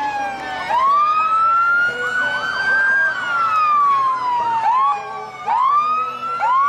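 Police siren sounding a wail: its pitch falls slowly from high to low, then sweeps back up, about every three seconds. Shorter rising whoops from a second siren overlap it.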